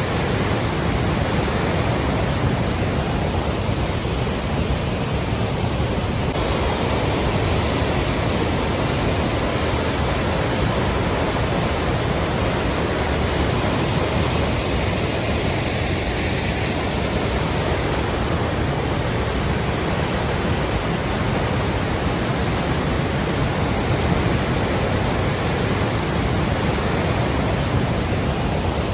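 Water flowing in a steady, unbroken rush.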